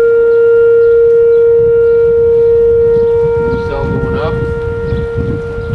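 Outdoor tornado warning siren sounding one steady, loud tone. A low rumbling noise joins about halfway through, with a brief voice-like sound near the end.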